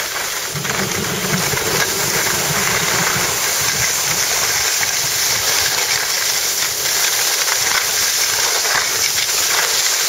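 Steady rushing hiss of downhill skiing: wind across the camcorder's microphone and skis sliding over groomed snow, with a low rumble underneath.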